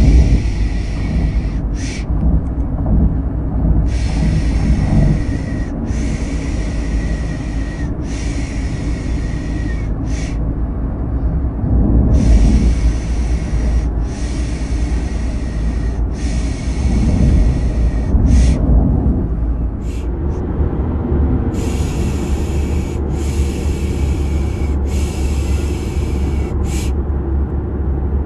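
Steady low car engine and road rumble, the kind heard from inside a moving car, with a person's hissing "piş piş" shushing laid over it. The shushes last a second or two each and come in runs of three or four, with a brief pause between runs. The shushing is a baby-soothing sound.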